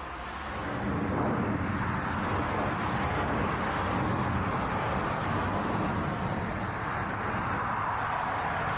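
Jet engines of a twin-engine airliner on final approach: a steady rushing jet noise that grows louder about a second in and then holds.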